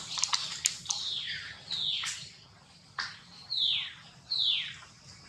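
A series of four high calls, each falling steeply in pitch over about half a second, with a few sharp clicks in the first second.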